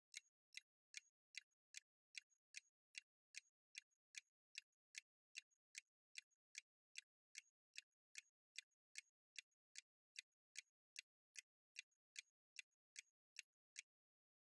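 Faint, clock-like ticking of a countdown-timer sound effect, about two and a half even ticks a second, stopping shortly before the end.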